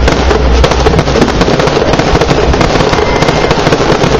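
Aerial fireworks going off in a dense, rapid stream of crackling pops and bangs over a low rumble.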